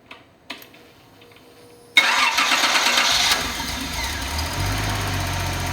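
A couple of light clicks, then, about two seconds in, the Nissan 280ZX Turbo's L28ET straight-six is started on a test stand. The starter cranks briefly, the engine fires and it settles into a steady idle.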